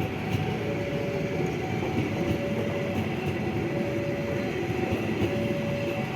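A train rolling past with a steady rumble and wheel noise on the rails. A two-note alarm sounds over it, switching between a higher and a lower note about every three-quarters of a second.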